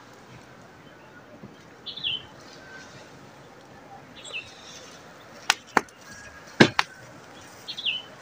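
A small bird chirping in short falling notes now and then over a steady hiss, with four sharp clicks in two quick pairs a little past halfway, the loudest sounds here.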